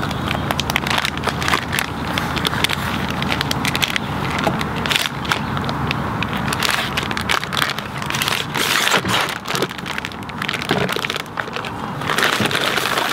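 Clear plastic poultry shrink bag crinkling and crackling as a whole plucked chicken is worked into it and the bag is handled, in a busy run of irregular rustles.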